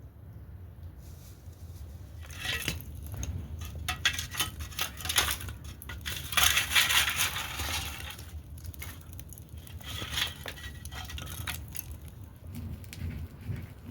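Irregular crunching and clinking handling noises, busiest around the middle, over a steady low hum.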